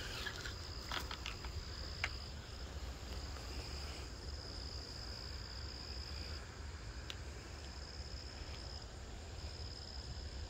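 Insects trilling in one steady high-pitched note that breaks off briefly a few times, over a low steady rumble, with a few faint clicks in the first couple of seconds.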